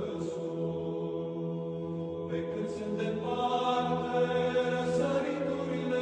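Orthodox church chant: voices singing a slow melody over a steady held drone note, with the upper voices growing stronger about three seconds in.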